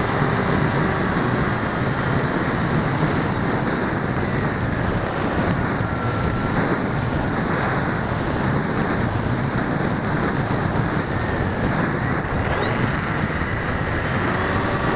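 Electric motor and unbalanced propellers of an RC aircraft running in flight, heard from a camera on board. Wind buffets the microphone, giving a dense rush, and a faint whine rises and falls with the throttle.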